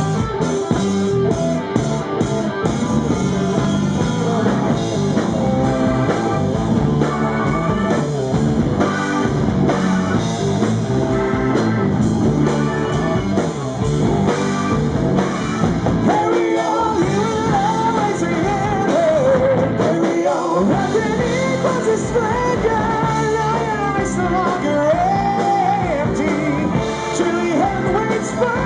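Live rock band playing with electric guitar and drum kit; a man's singing voice comes in over the band about halfway through.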